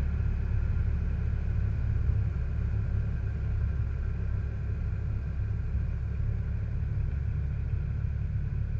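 Modified Pontiac Fiero engine running steadily at constant speed, a low rumble with no revving.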